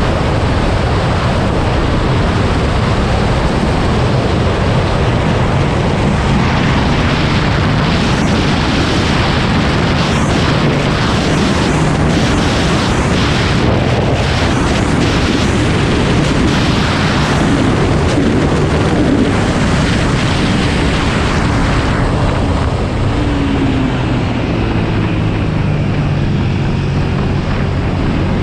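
Suzuki SV650's V-twin engine running hard at speed, mostly buried under heavy wind rush on the camera microphone; its pitch rises near the end as it accelerates.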